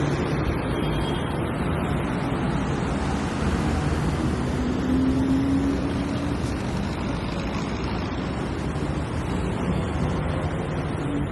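Busy road traffic: a steady, continuous noise of many cars and heavier vehicles running past, with a low engine hum underneath. One vehicle's engine note stands out briefly about five seconds in.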